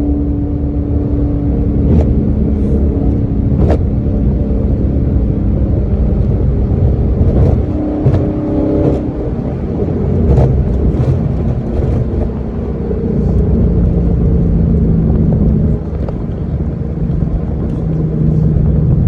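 V8 car engine and exhaust heard from inside the cabin while driving, the engine note rising and falling several times with the throttle. A few sharp knocks or clicks stand out over it.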